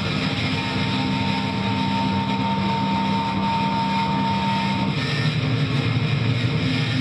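Live band playing a loud, distorted, droning passage led by heavily amplified electric guitar. Two held tones, one low and one higher, sustain through it and drop away about five seconds in.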